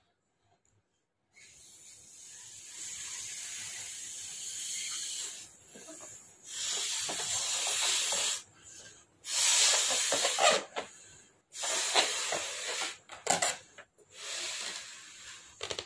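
A person blowing up a balloon by mouth: a series of forceful breaths into it, each a rushing hiss. The first lasts about four seconds and the later ones are shorter, with brief pauses between them to breathe in.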